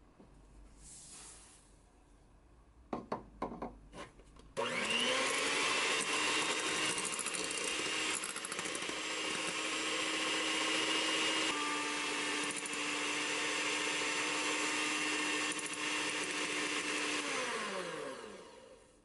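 Electric hand mixer whipping egg-white meringue in a glass bowl. After a few knocks, the motor starts with a rising whine about four and a half seconds in, runs steadily, then winds down and stops near the end.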